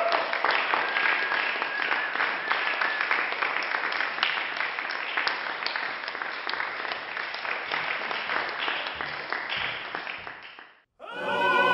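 Audience applauding, steady clapping that fades out about eleven seconds in. Music starts just before the end.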